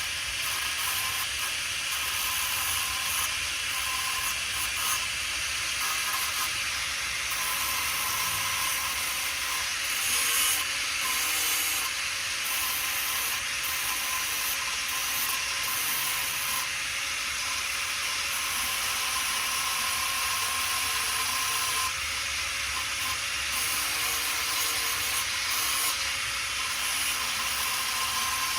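Electric arc welder crackling and hissing steadily while tack-welding metal on an ATV.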